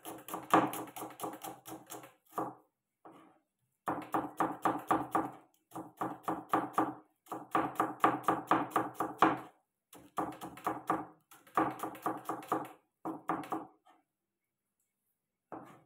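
Kitchen knife chopping a red onion on a wooden cutting board: quick knocks of the blade on the board, several a second, in runs of a second or two with short pauses between.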